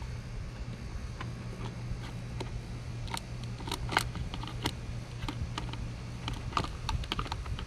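Irregular small clicks and taps of plastic and metal as the side cover of an Echo 56-volt chainsaw is fitted back on over the bar and its nuts are started, over a steady low hum.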